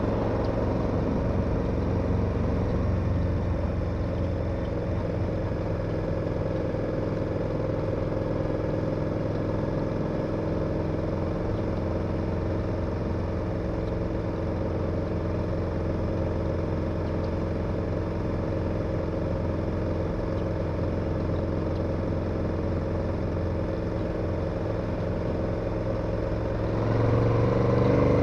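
KTM 1290 Super Adventure's V-twin engine running at steady cruising revs, then opening up and accelerating near the end.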